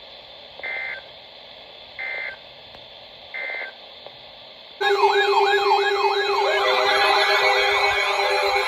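Three short, shrill data bursts about a second and a third apart over radio hiss: the SAME end-of-message code that closes a NOAA Weather Radio warning. About five seconds in, a much louder layered electronic sound takes over, with warbling and sweeping siren-like tones over a steady low tone.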